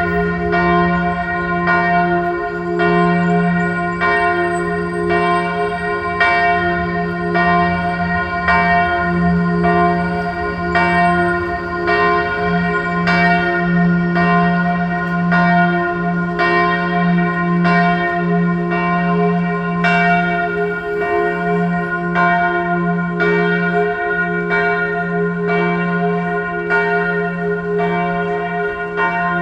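A single bell struck over and over at an even pace, about once every second and a quarter, each stroke ringing on into the next: the bell tolling to mark the hour.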